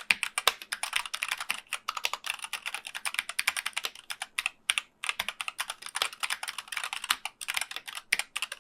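Fast typing on a Keychron K8 mechanical keyboard: a rapid, continuous stream of key clicks with a short pause about five seconds in.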